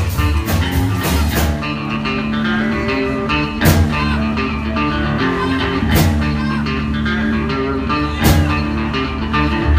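Rock band playing live: electric guitar over bass, with a sharp accent hitting about every two seconds.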